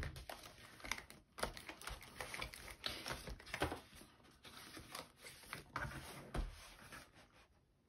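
Faint rustling and light taps of a ring-binder planner being opened and its paper pages flipped by hand, in a run of small irregular handling noises.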